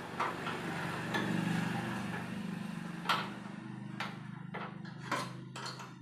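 Several sharp metallic knocks and clinks of tools and metal parts being handled during gas stove repair, about one a second in the second half, over a steady low hum.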